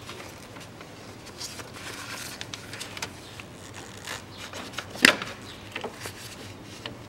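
Steel pliers working a cotter pin out of an ATV's ball-joint nut: small metal scrapes and clicks, with one sharp metallic click about five seconds in.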